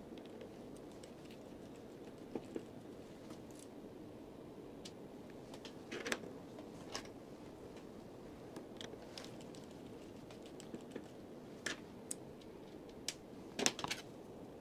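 Scattered small clicks and taps of a precision screwdriver and tweezers on the opened phone's metal frame and internal parts, with a cluster of sharper clicks near the end, over faint steady background noise.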